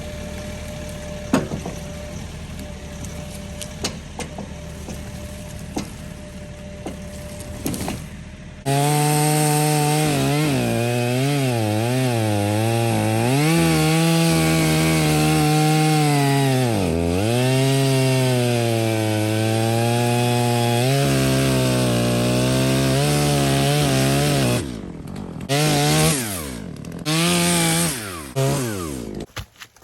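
Chainsaw cutting wood. After a quieter stretch, the saw runs at full throttle from about nine seconds in for some fifteen seconds, its pitch dipping and recovering as the chain bogs in the cut. Near the end come a few short revs that fall away as the throttle is let off.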